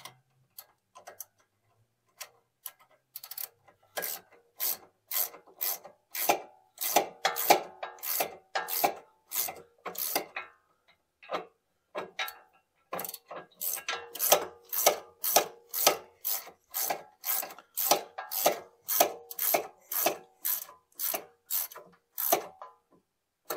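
Hand ratchet wrench clicking in quick back-and-forth strokes, about two clicks a second, as a nut on the front suspension is run down. The clicks start sparse, then come steadily, with a pause of about two seconds midway.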